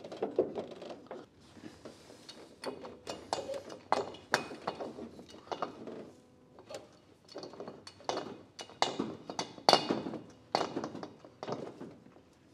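Hydraulic body ram being pumped to push out a dented rear body panel: a string of irregular clicks and clunks, roughly one a second, from the pump and the metal under load.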